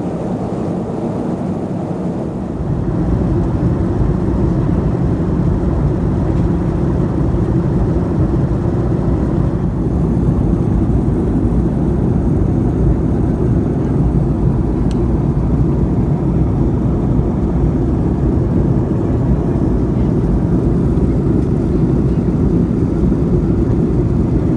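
Steady in-flight cabin noise of a Boeing 737-200, heard from a window seat: the rush of air and the Pratt & Whitney JT8D-17 turbofans running, deep and even. It gets a little louder about two and a half seconds in, then holds steady.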